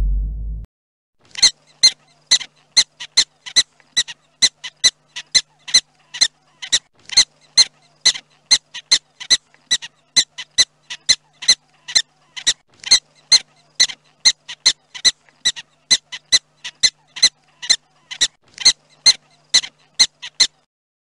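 Black-tailed prairie dog barking: a long, even series of short, sharp, high-pitched barks, about two to three a second, the repeated bark that prairie dogs give as an alarm call. A drum beat ends just before the barking starts.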